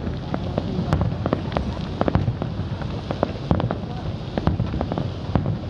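Fireworks going off: a rapid, uneven string of sharp bangs and crackles over a continuous low rumble.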